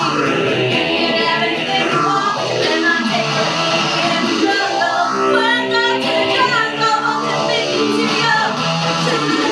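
A woman singing a song live, accompanied by a band with guitar, with long held notes.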